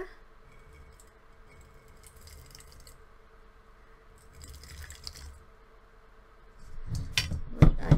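Water poured in a faint trickle from a glass measuring cup onto instant snow powder in a stainless steel bowl, just a little to activate it. Near the end come two sharp knocks, the loudest sound.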